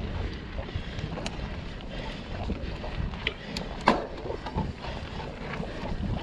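Wind buffeting the microphone over a steady low rumble, with scattered light clicks and rattles and one sharper knock about four seconds in.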